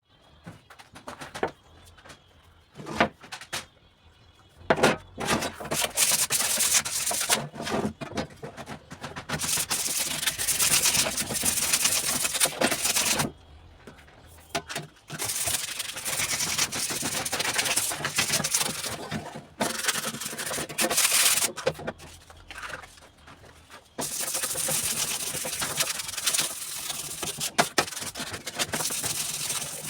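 Aerosol spray paint can hissing in several long bursts, with short clicks and knocks in the pauses between them.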